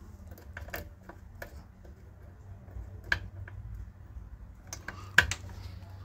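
Multimeter test probes and thin low-voltage wires being handled: scattered light clicks and taps, the sharpest about five seconds in, over a low steady hum.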